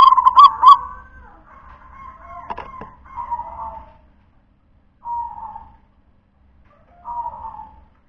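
Zebra dove (perkutut) cooing: a loud group of three quick notes at the start, a run of coos, then two short coos about five and seven seconds in. A couple of sharp clicks sound midway.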